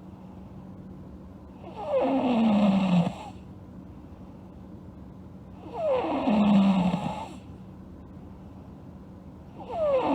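A sleeping girl snoring: three loud snores about four seconds apart, each lasting over a second with a pitch that falls through the snore, the third starting near the end.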